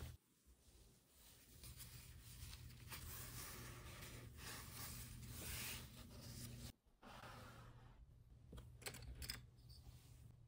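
Faint scratching and rustling of a watercolour brush working on sketchbook paper, over a low steady hum.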